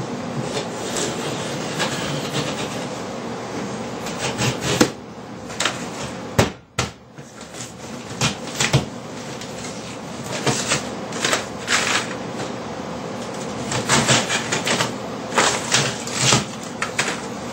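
Gypsum drywall being cut and broken out of a wall by hand: steady scraping and crumbling with many sharp cracks and knocks, which come more often in the second half.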